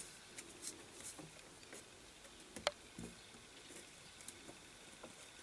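Faint scattered rustling and light ticks, with a sharper click about two and a half seconds in.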